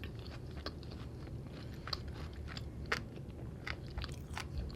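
Close-miked chewing of a steak fajita taco in a flour tortilla: soft wet mouth clicks and smacks, scattered irregularly over a low steady hum.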